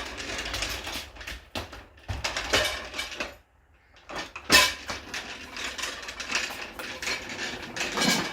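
Cut steel pieces clattering and scraping against each other as they are handled and laid out, with several sharp metallic knocks, the loudest about halfway through.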